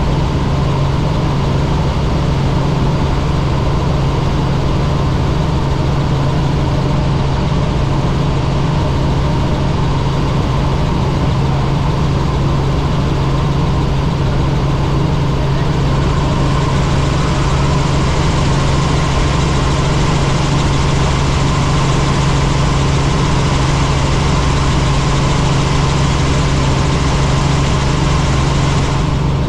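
Helicopter engine and rotor running steadily: a constant, loud drone with a steady low hum, and a brighter hiss that comes in about halfway through.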